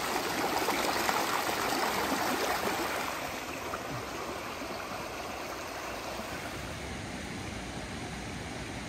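Shallow mountain stream rushing and babbling over rocks in a steady wash of water noise, a little quieter after about three seconds.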